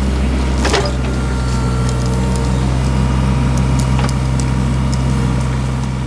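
Mini hydraulic excavator's diesel engine running steadily, with a sharp knock less than a second in and a lighter click around four seconds in.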